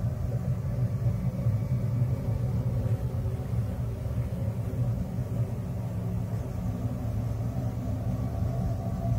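Ambient 'sound of space' drone track: a steady deep rumbling hum with several held tones layered over it, unchanging throughout and with no beat.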